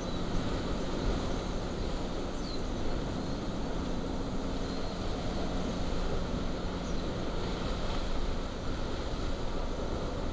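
Lava fountain from a Kilauea eruptive fissure, a steady deep rumble with no letup.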